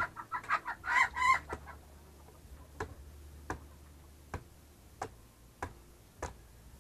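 A chicken clucking for the first second or so, then a large knife chopping into the husk of a green young coconut: about six sharp, evenly spaced strikes.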